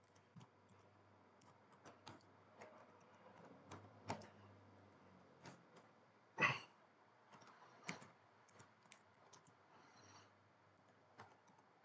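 Faint, irregular keystrokes on a computer keyboard, typing a comment, with one louder short sound about six and a half seconds in.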